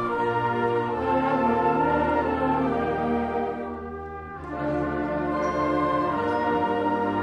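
Concert band playing held, brass-led chords; the sound drops away briefly about four seconds in, then the full band comes back in.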